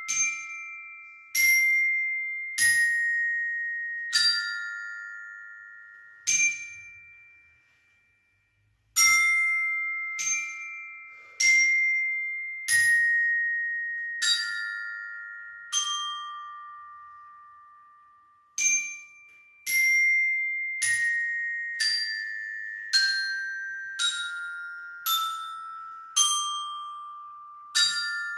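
Glockenspiel played with two mallets: a slow, simple melody of single metal-bar notes, each ringing and fading away. Two short pauses break the tune, and the notes come quicker near the end.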